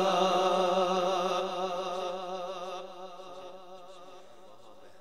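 A man's singing voice holding the last note of a naat line with a wavering vibrato, then fading away over the next few seconds.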